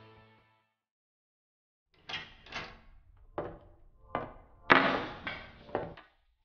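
A run of about seven separate knocks and thuds, the loudest a little over halfway, as of a door and household objects being handled, ending as a set of car keys is set down on a wooden table.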